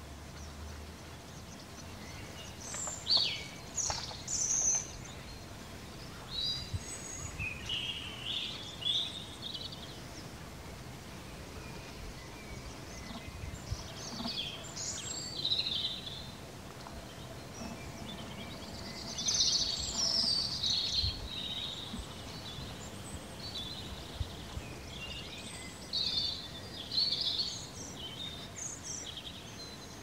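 Evening birdsong: several small birds singing and chirping in short, scattered phrases over steady low background noise.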